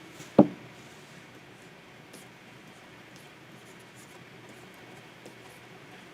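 Plastic stylus drawing on a Wacom 24 Pro tablet: faint scratching strokes and light ticks of the pen tip, with one sharp knock about half a second in.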